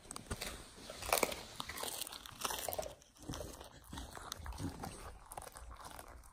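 A pit bull gnawing and crunching on a chew: irregular bites and crackles, with a short pause about three seconds in.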